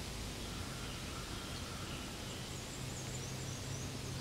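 Steady outdoor background noise with a low hum, and a few faint, short, high chirps around the middle.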